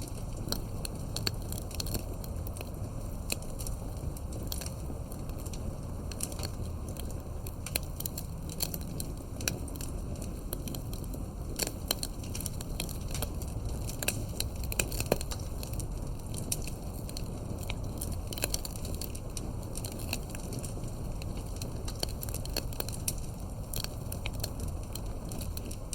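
Wood campfire crackling, with frequent irregular sharp pops and snaps over a steady low rumble.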